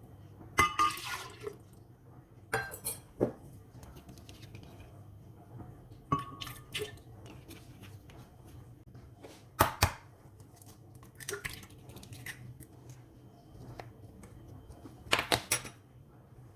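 Kitchen prep sounds: a series of short clinks and knocks of dishes and glassware, with some liquid pouring and dripping, as waffle batter ingredients are handled. The loudest clatter comes as several quick clinks near the end.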